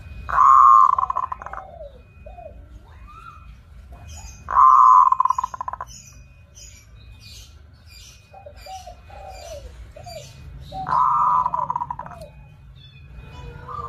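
Zebra dove (perkutut) cooing three times, each a loud trilled coo of about a second, a few seconds apart. Other small birds chirp faintly in between.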